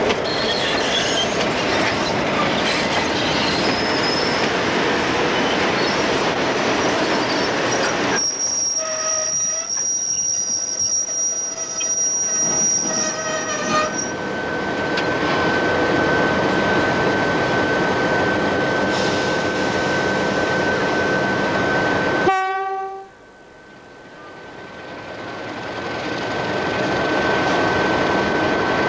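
NSW 44 class Alco diesel-electric locomotive running as it moves through the yard, with high wheel-flange squeal on the rails about a third of the way in and a steady whine underneath. Near the end a sudden click and short tone cut in, and the sound drops away and slowly swells back.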